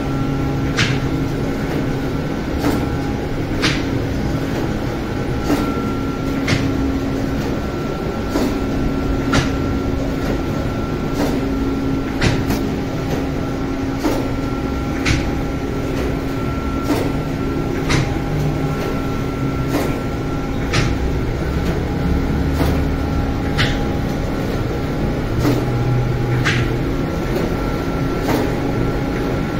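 Steady mechanical hum from an automatic lavash bread line's oven and conveyor, with a few fixed tones in it. A sharp click comes about once a second.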